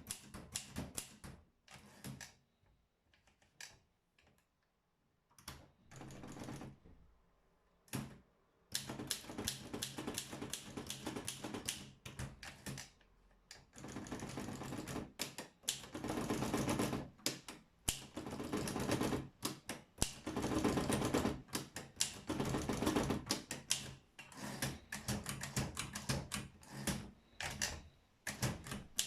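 Olympia SM7 manual portable typewriter being typed on: type bars striking in quick runs of clicks, with a pause of a few seconds near the start.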